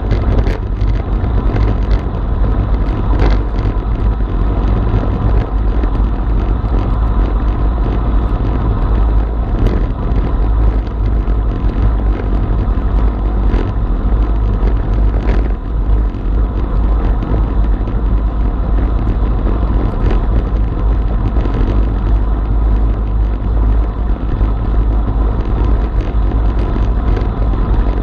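Wind buffeting the microphone of a bike-mounted action camera on a road bike at about 45 km/h: a steady, loud low rumble with road noise mixed in.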